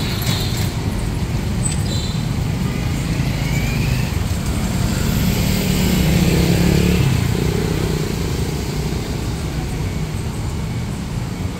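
Urban street traffic: motor scooters and cars running past in a steady rumble, louder for a few seconds in the middle as a vehicle passes close. A brief high toot sounds about two seconds in.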